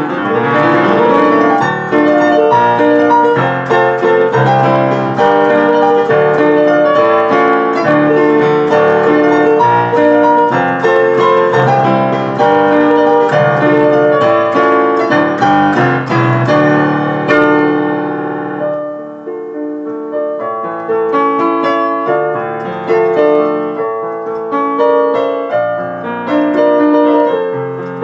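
Digital piano played with both hands: a loud, busy passage with full chords and bass notes, which thins out and drops a little in loudness about two-thirds of the way through before carrying on.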